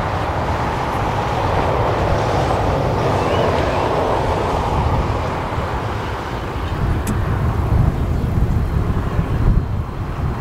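Jet engines of an arriving business jet, a rushing noise that swells over the first few seconds and fades after about six, with wind rumbling on the microphone throughout.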